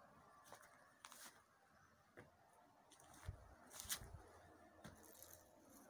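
Near silence with a faint hiss, a few scattered faint clicks, and two soft low thumps about three and four seconds in.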